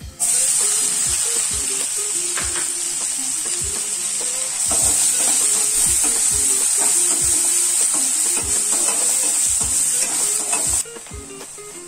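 Chopped onions hitting hot oil with whole spices in a frying pan, setting off a loud, steady sizzle at once, while a spatula stirs and knocks against the pan. The sizzle drops away suddenly near the end.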